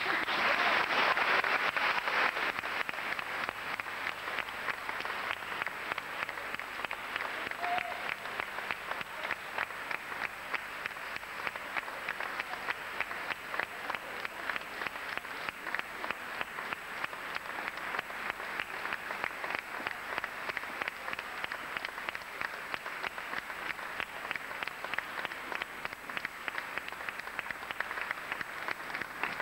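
Audience applauding, loudest over the first couple of seconds and then settling into steady clapping.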